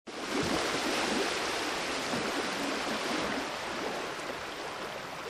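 Steady rushing sound of running water, like a flowing stream, starting abruptly.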